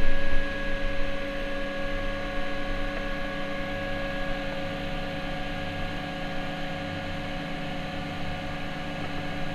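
Fullextruder PRO desktop filament extruder running while it winds freshly extruded PLA filament onto its spool: a steady machine hum with several held tones over a faint hiss.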